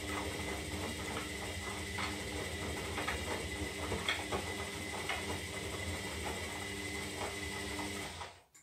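Zanussi Lindo 300 washing machine's motor turning the drum through a synthetic wash cycle, a steady motor whine with scattered clicks and knocks from the tumbling load, stopping abruptly near the end as the drum pauses.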